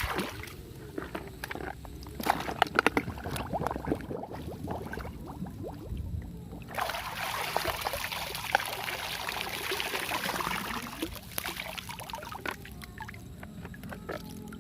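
Water splashing and sloshing with small knocks of plastic toy trucks being washed, then about seven seconds in a steady rush of pouring water for some four seconds.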